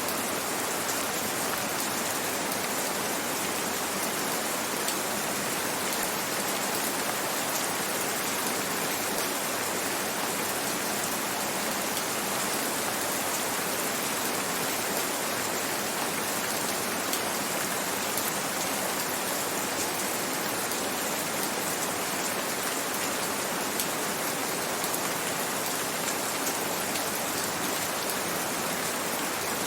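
Steady rain falling, an even hiss with faint patter of drops throughout.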